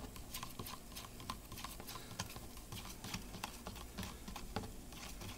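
A plastic spoon stirring a red iron(III) oxide slurry in a thin plastic cup, clicking and scraping irregularly against the cup's wall, several small clicks a second.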